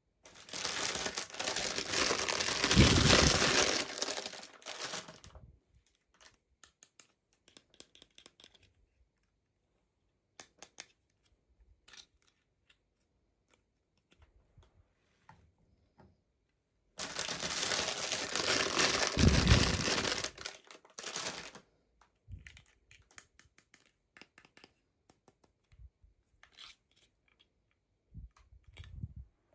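Toy packaging being crinkled and torn open in two loud spells of a few seconds each, near the start and again just past the middle, with faint clicks and taps of handling the box and pieces in between.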